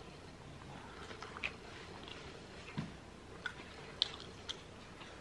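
A person chewing a soft bite of burrito close to the microphone: quiet wet mouth sounds with a few short sharp smacks scattered through.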